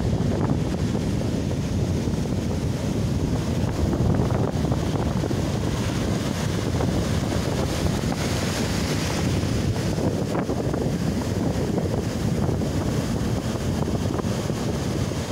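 Storm surf breaking and washing up a sandy beach, with strong wind buffeting the microphone. The hiss of foam grows a little about eight seconds in as a wave washes right up close.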